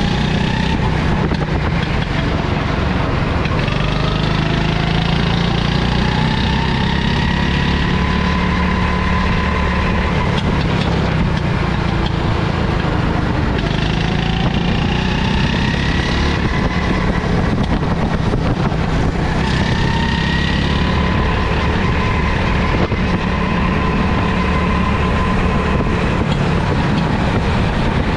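Rental go-kart's small petrol engine running at speed, its note climbing as the kart accelerates down the straights and dropping back into the corners, several times over. Underneath runs a steady low rumble.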